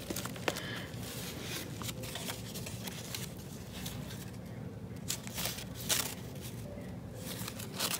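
Paper handling: soft rustling and scraping of card and paper as hands slide a tag and a paper doily piece out of a junk-journal pocket, with a few brief crisp ticks of paper.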